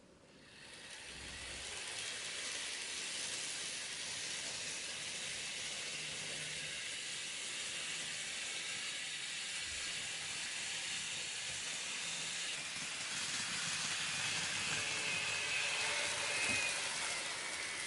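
N-gauge model trains running on the layout track: a steady rolling hiss of small wheels on rail with motor noise, starting as a train pulls away. It grows louder near the end as a model Hankyu 1300-series local comes in, with a faint high whine.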